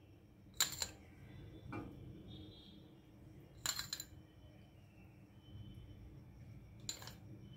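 A spoon clinking against a cooking pan four times, in short sharp taps spread a second or more apart, as spoonfuls of solid ghee are dropped into the pan.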